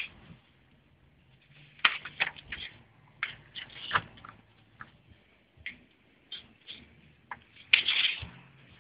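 Irregular sharp clicks and short rustling knocks, bunched around two seconds in and again near the end, over a faint steady low hum.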